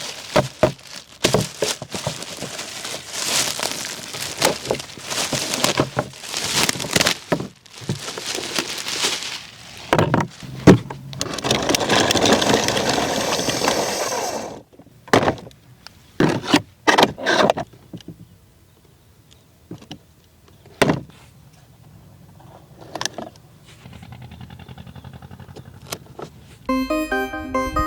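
Handling of a die-cast model dump truck and its packaging: rough scraping and rustling with many sharp clicks for about half the time, then a series of separate clicks and knocks. Keyboard music comes in near the end.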